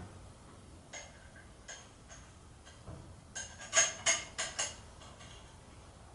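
Ratchet wrench clicking under the car: a few single clicks, then a quick run of about six sharper metallic clicks near the middle.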